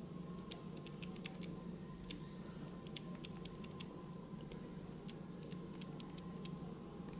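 Handheld electronic calculator's keys clicking as figures are keyed in to total a column: an irregular run of light clicks, over a steady low hum.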